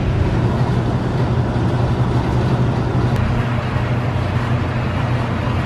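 A steady low mechanical hum, unchanging throughout.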